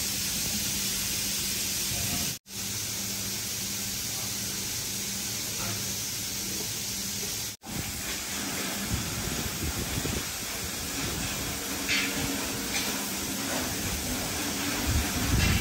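Steady hissing noise with a faint low hum, cut off abruptly for an instant twice. In the second half, uneven knocks and rustles of handling join it.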